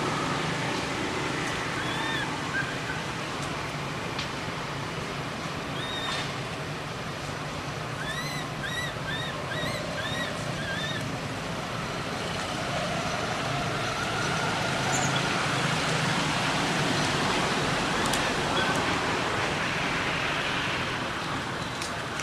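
Steady outdoor background noise like distant traffic, with a few short arching chirps, including a quick run of about six in the middle.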